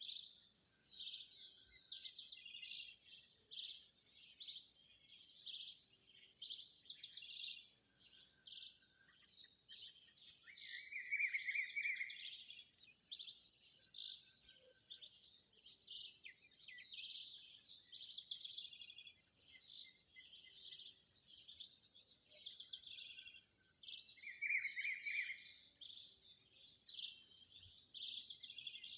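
Birds chirping and calling over a steady, high insect drone. A louder bird call stands out twice, about eleven seconds in and again near twenty-five seconds.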